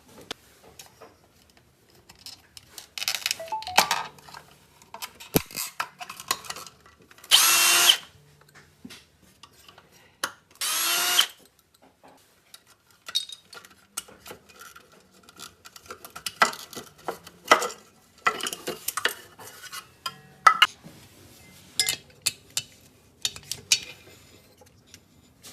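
A power screwdriver runs in two short bursts about three seconds apart, backing out screws from the housing over a refrigerator compressor's starter relay and overload protector. Scattered clicks and knocks of screws and plastic parts being handled run between the bursts.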